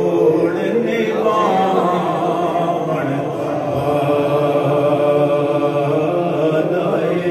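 Men's voices chanting a devotional recitation in long, drawn-out notes.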